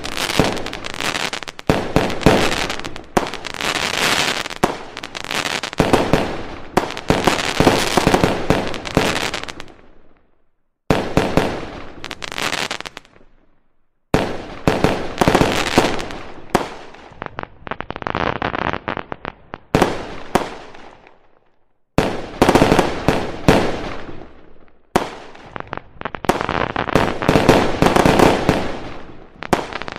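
Aerial fireworks display: dense volleys of shell bursts, bangs and crackling that break off abruptly several times and start again.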